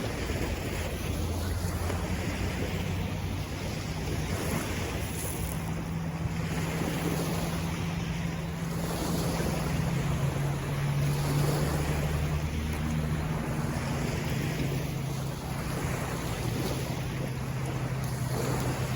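Small waves washing onto the shore in slow swells, with wind buffeting the microphone. A low steady motor hum, like a boat engine, runs underneath.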